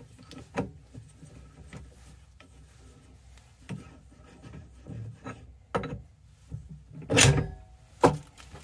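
Metal tool rest of a Grizzly wood lathe being handled and set into its banjo: a few light clicks and knocks, then a longer scraping rub about seven seconds in and a sharp clunk just after.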